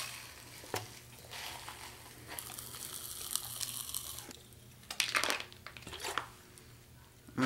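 Pop Rocks popping candy crackling and fizzing in an open mouth for a few seconds, then a few louder slurping sounds near the end as soda is drunk from a bottle.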